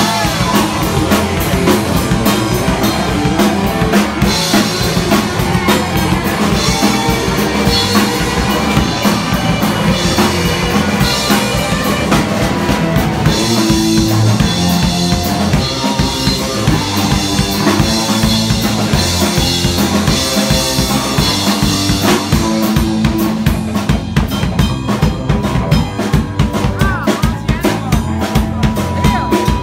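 Live punk band playing: electric guitar, bass guitar and drum kit, amplified through a club PA, with the drums prominent throughout.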